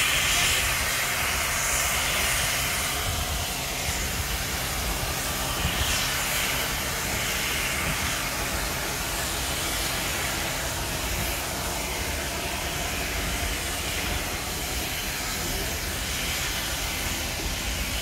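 SNCF 241P 4-8-2 steam locomotive pulling its train slowly away: steam hissing from the open cylinder drain cocks and exhaust beats, over the low rumble of the coaches rolling on the track.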